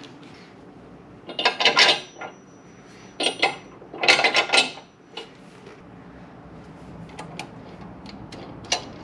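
Loose steel bolts, nuts and spacers clinking and clattering as they are handled, in two loud bursts in the first half, then lighter metallic clicks and taps as the ball joint extension plate and its hardware are fitted to the lower control arm by hand, with one sharp click near the end.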